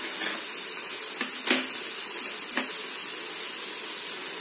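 Onion, tomato and ginger-garlic masala sizzling steadily in a pot over a low flame, with a few sharp clicks, like a spoon touching the metal.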